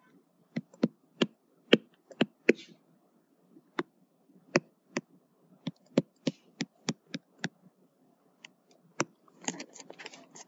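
Stylus tapping and clicking against a tablet surface during handwriting: a string of irregular sharp ticks over a faint background hiss.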